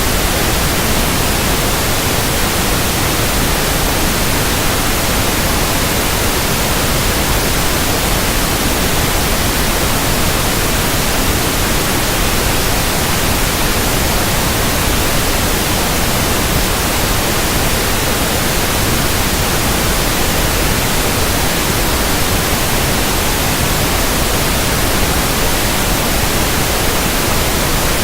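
Steady pink noise speaker-test signal: an even, unchanging hiss spread across the whole range from deep lows to highs.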